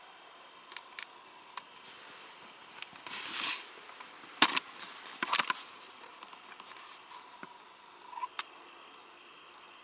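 Close rustling of leaves and sharp clicks and knocks from the camera being handled and moved through birch foliage. The loudest knocks come about halfway through, over a faint steady background.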